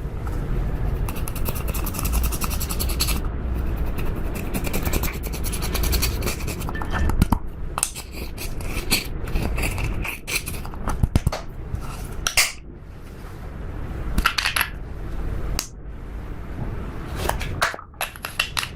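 Slime being worked by hand with eyeshadow mixed in, giving rapid sticky clicking and crackling, with a few louder bursts of clicks and pops.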